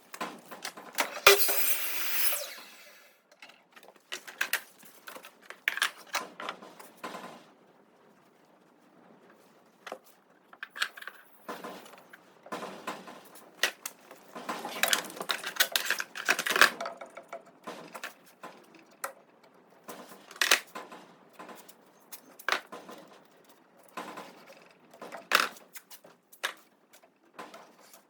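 Workshop handling noise: tools and wood being knocked and set down in irregular clicks and clatter, with a short, louder noisy burst about a second in.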